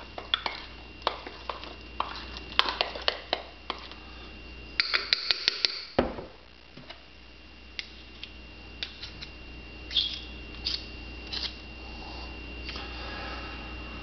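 A spoon stirring thick cake batter in a mug, clinking and scraping against the sides at an irregular pace, with a quick run of clinks about five seconds in and a dull knock just after. A faint steady high tone sits underneath.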